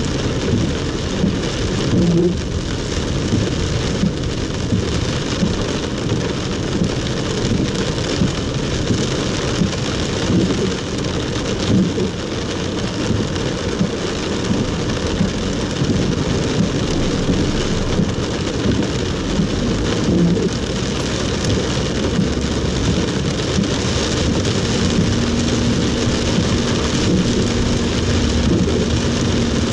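Heavy rain pouring down on a moving car, heard from inside the cabin as a steady, dense hiss of rain on the roof and windscreen.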